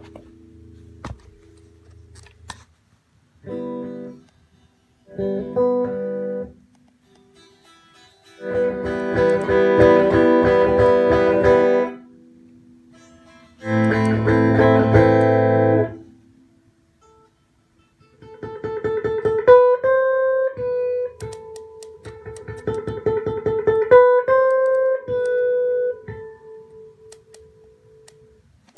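Electric guitar played through an amp with a passive volume pedal in line: four short bursts of strummed chords that cut off sharply, then a single-note melody with a few notes bent or slid in pitch.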